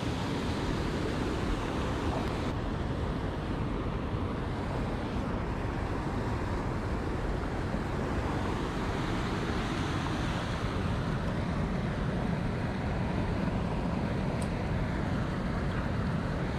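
Steady rushing wind noise on the microphone, with no distinct events.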